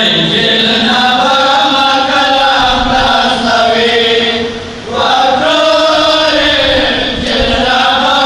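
Male voices chanting a Pashto noha, a Shia lament for Imam Hussain, in a slow sung melody into microphones. The chant breaks briefly for breath about halfway through, then resumes.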